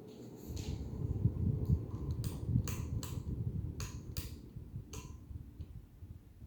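Nadair Coral Bay ceiling fan running, its air gusting over the microphone as an uneven low rumble that builds about half a second in and fades near the end. Several short sharp clicks sound through it.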